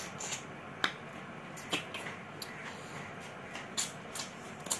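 A person chewing a mouthful of rice and meat eaten by hand, with about six short, wet mouth smacks and clicks coming at irregular intervals.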